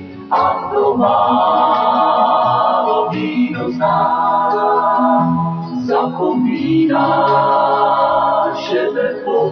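Czech country song: male vocals sing three long held phrases over the band's accompaniment.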